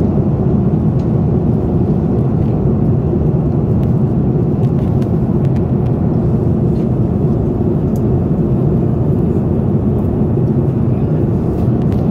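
Steady cabin noise of a jet airliner in cruise flight: an even, low-pitched rush of engine and airflow noise that does not change.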